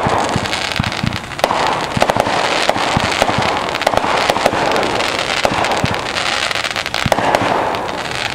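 Fireworks crackling: a dense, unbroken run of rapid sharp pops that starts suddenly.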